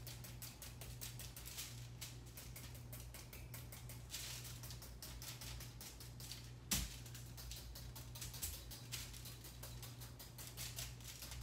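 Small kitchen knife repeatedly stabbing holes in a raw jumbo potato: a quick run of faint taps and clicks, with one sharper click about seven seconds in, over a steady low hum.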